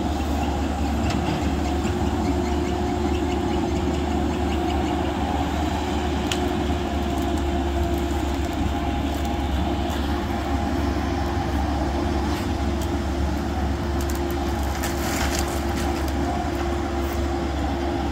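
Merlo Roto telehandler's diesel engine running steadily at working revs with a steady whine over the low drone, while its Woodcracker tree-shear head works on felled limbs. A few short sharp cracks come near the end.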